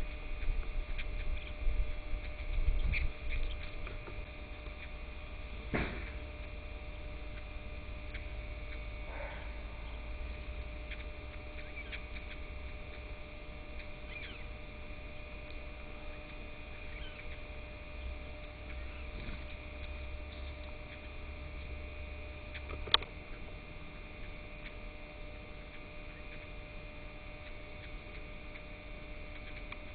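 Steady electrical hum made of several even tones, with a low rumble in the first few seconds and a sharp click about 23 seconds in.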